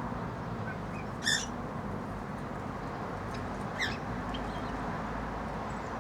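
Cockatiels giving a few short chirps, the clearest about a second in and another near four seconds, over a steady background hiss.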